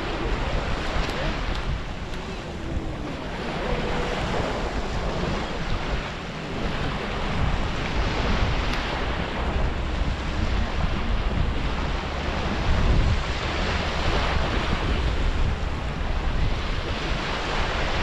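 Small waves breaking and washing up a sandy shore, with wind buffeting the microphone in a steady low rumble that swells and eases.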